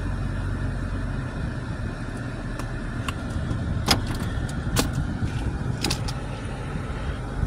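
2021 Toyota Tacoma's engine idling, a steady low hum heard from inside the cab. A few sharp clicks or taps come in the middle seconds.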